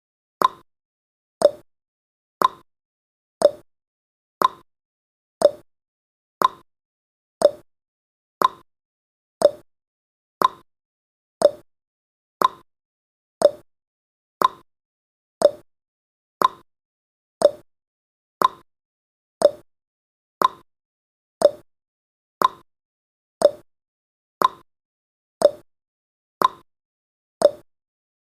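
Countdown timer's tick sound effect: one short, hollow tock every second, perfectly regular.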